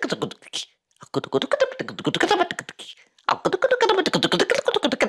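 A man's voice making rapid, clicking, chattering non-word syllables, the fast-paced vocal sounds of channeled 'light language'. They come in three quick runs broken by short pauses, about a second in and about three seconds in.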